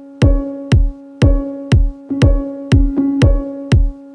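Electronic backing music: a deep kick drum about twice a second over a held synth note.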